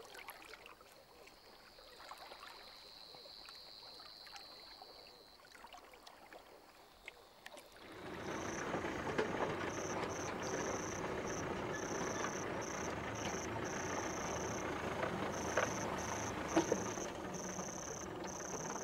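Quiet for the first several seconds, then about eight seconds in a Land Rover Defender 4x4 comes up, its engine running steadily as it drives slowly through tall grass, the grass brushing along the body. A high trill pulses on and off above it.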